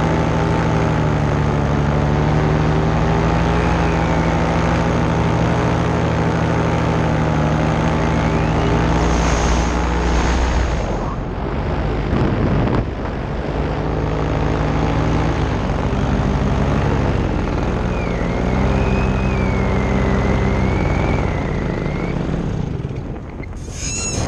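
Paramotor engine and propeller running steadily in flight. The pitch shifts and falters briefly about halfway through, then the engine settles again and is throttled back near the end.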